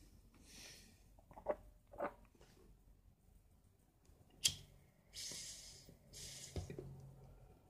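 Faint breathing close to the microphone, two breaths in a row past the middle, with a few soft clicks and knocks before them; the sharpest click comes about four and a half seconds in.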